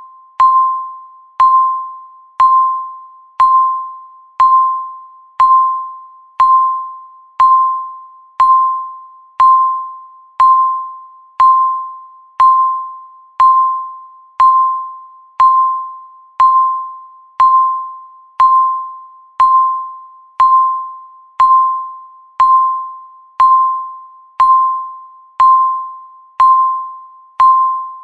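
Countdown timer beeping once a second: a single mid-pitched electronic tone, each beep starting sharply and fading away like a chime, marking each second that passes.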